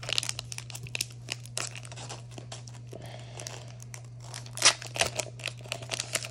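Foil booster-pack wrapper of Pokémon trading cards crinkling and tearing as it is pulled open by hand: a run of crackles, with a loud rip a little under five seconds in.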